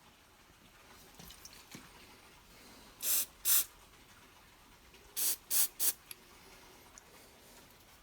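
Aerosol can of parts cleaner hissing out in five short sprays, two and then three, onto carburettor jets gummed up with old fuel.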